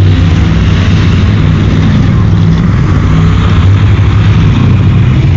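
Off-road truck engine running steadily at an even, unchanging pitch.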